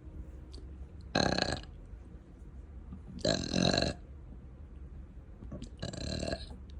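A person burping deliberately, three times about two seconds apart, each burp about half a second long, the last one softer.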